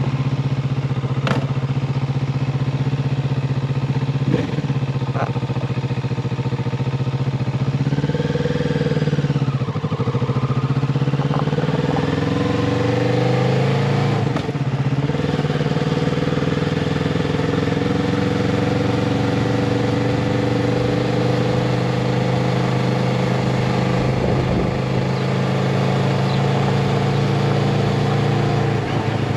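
Motorcycle engine idling, with two sharp clicks in the first few seconds. From about eight seconds in it pulls away: the pitch rises, drops back, rises again, then holds a steady higher note.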